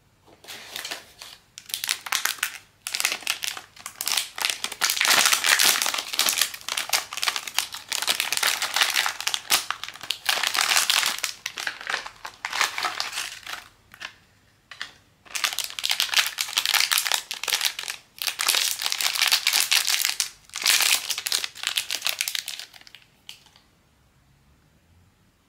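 Blind-bag plastic packaging crinkling as it is handled and unwrapped, in long stretches with a few short breaks, stopping a couple of seconds before the end.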